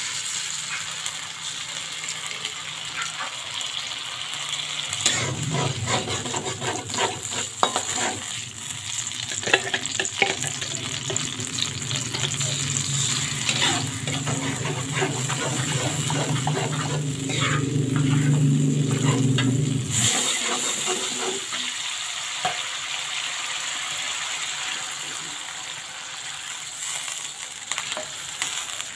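Blended chili spice paste sizzling as it fries in hot oil in a wok, with a metal spatula scraping and stirring against the pan. A steady low hum comes in about five seconds in and cuts off abruptly about twenty seconds in.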